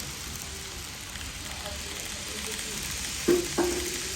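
N-gauge model trains running on the layout track with a steady hiss. About three seconds in come two sharp clicks close together, followed by a short held tone.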